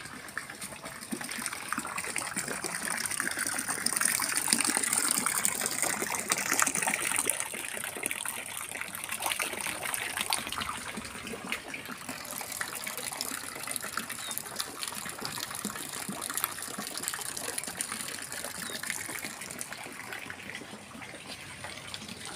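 Water gushing and splashing from a garden pond's water feature, a steady rushing sound that swells a few seconds in and then slowly eases off.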